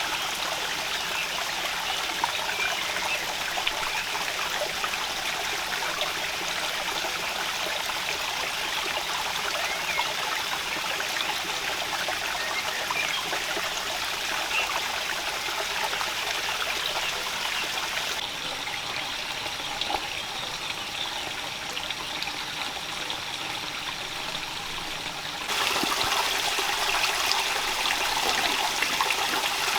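Steady rain falling: an even hiss with fine patter. The sound drops abruptly about 18 seconds in, quieter and duller, and returns louder about 25 seconds in.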